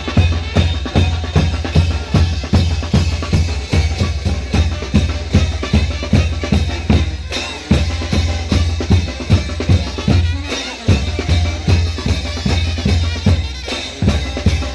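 A live Mexican banda playing, led by a steady bass drum and snare beat at about three hits a second over a strong low bass line. The beat pauses briefly twice near the middle.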